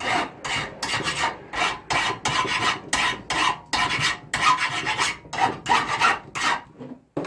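Hand file rasping back and forth across a steel Damascus billet in quick repeated strokes, about two to three a second, cleaning weld spatter off it so no mild steel ends up as an inclusion. The strokes stop shortly before the end.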